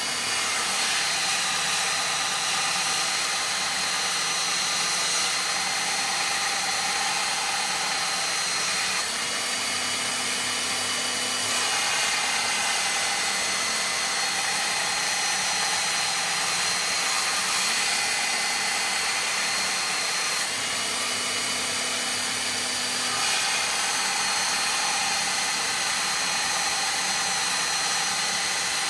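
Einhell TC-BS 8038 800 W belt sander running steadily while a 3 mm steel blade is ground against its moving belt to form an edge. A high whine in the noise steps up and down in pitch several times.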